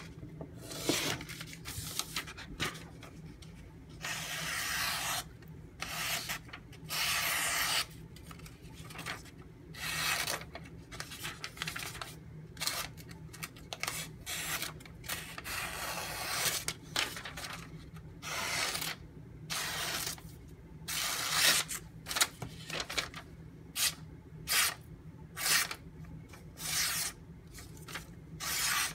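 Ontario Utilitac II tanto knife blade making a long series of rasping strokes, each lasting up to about a second and a half, with short pauses between them.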